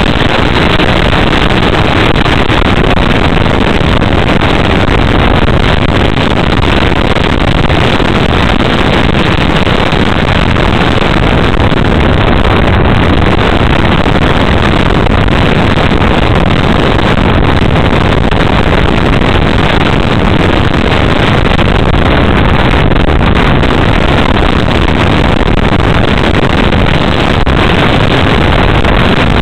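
Loud, steady rush of air noise on the onboard camera of a Sky Surfer RC motor glider in flight, even and unbroken with no clear pitch.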